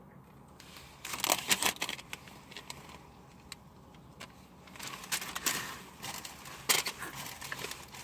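Paper being handled, rustling and crinkling in several short bursts.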